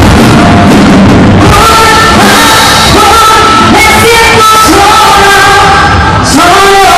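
Loud live band music over a PA system, with a woman singing the melody into a microphone.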